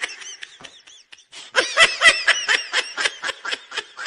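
Boys laughing close by: after a quieter start, a run of rapid ha-ha pulses begins about a second and a half in and trails off near the end.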